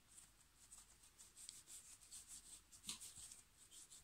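Faint rubbing of hands rolling and shaping a ball of brioche dough, with one light tap about three seconds in.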